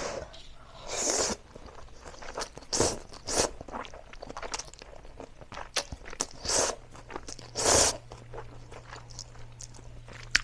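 Spicy Korean instant noodles slurped off chopsticks in several short hissing pulls, with chewing and small wet mouth clicks in between.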